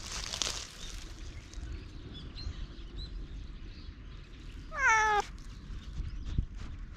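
A cat meows once, about five seconds in: a single call of about half a second that falls in pitch.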